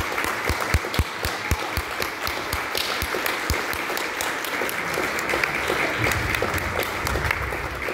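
A small audience applauding steadily, the single claps of nearby hands standing out.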